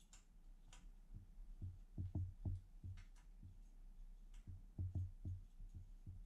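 Faint handling noises of a fiber laser marking machine's metal parts being fitted together by hand: an irregular series of soft low thuds and light clicks, over a faint low hum.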